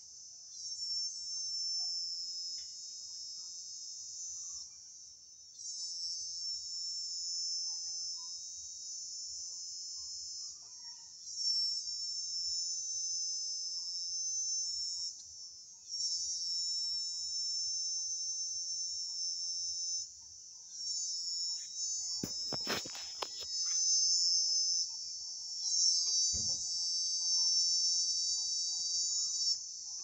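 Insects trilling in a high, steady buzz, in bouts of about four to five seconds broken by short pauses. A quick cluster of knocks comes past the middle, and a low thump a few seconds later.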